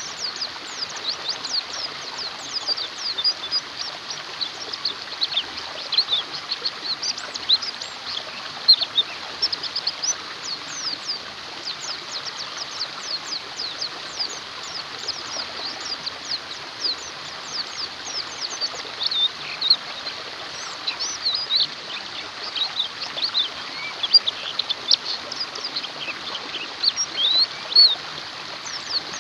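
White-eyes (pleci) twittering in a dense run of quick, high chirps and short trills over a steady rush of flowing water.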